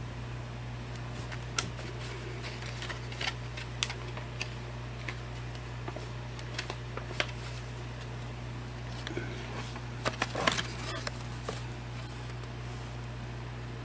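Hands handling small packaged toiletry items and packaging: scattered clicks, taps and light rustling, with a busier run of rustling and clicks about ten seconds in, over a steady low hum.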